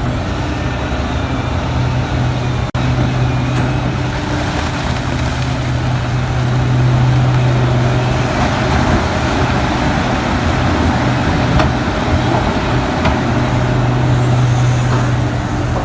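Heavy diesel mining machinery running steadily with a deep engine hum under broad mechanical noise, with a brief dropout about three seconds in.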